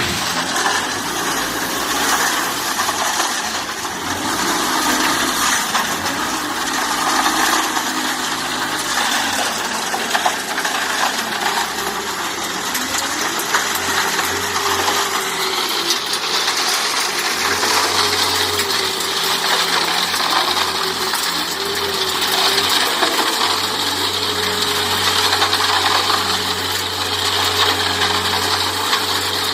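4 m³ self-loading concrete mixer running under test, with a dense metallic clatter and rattle over its engine. About halfway through a wavering whine joins in, and it settles into a steady whine with a low hum near the end.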